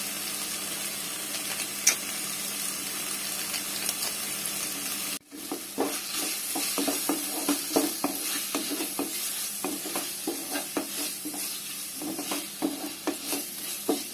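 Vegetables and mint paste sizzling in oil in a non-stick kadai with a steady hiss. About five seconds in, a spatula starts stirring, scraping against the pan in quick, uneven strokes over the sizzling.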